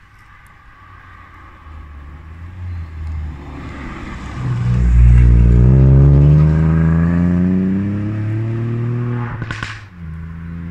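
Ford Fiesta ST mk8's 200 hp turbocharged three-cylinder engine, breathing through a modified exhaust, approaches and accelerates hard out of a hairpin. The note grows louder and climbs steadily in pitch. It drops back to a lower note after a short burst of noise near the end.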